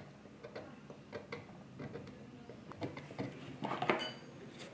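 Steel pick scraping and picking at fossil bone and its sediment matrix, a string of small irregular ticks and scrapes, a few a second. A denser, louder run of scrapes comes near the end.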